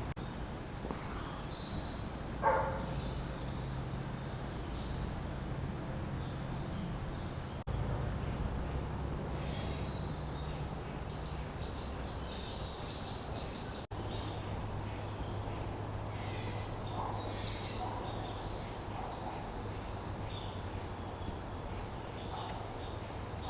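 Songbirds chirping and singing over a steady low hum, with one louder call about two and a half seconds in. The background hum changes abruptly twice.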